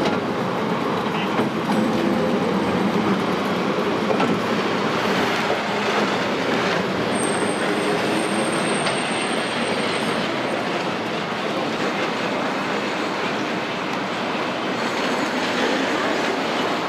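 Vintage two-car tram rolling past on street rails: a steady rumble of wheels and running gear with a few knocks, and a thin high squeal for a few seconds about halfway through.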